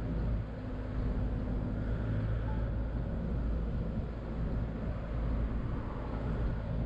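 Car driving at a steady pace: a low engine hum with road and tyre rumble, heard from inside the car.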